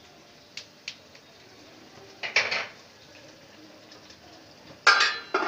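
Spatula clicking and scraping against an aluminium cooking pan, then a lid set down on the pan near the end with two sharp metallic clanks that ring briefly.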